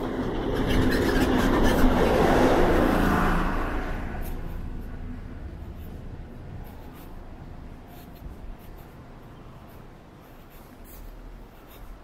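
A motor vehicle passing close by, its engine and tyre noise swelling to a peak about two to three seconds in, then fading steadily away.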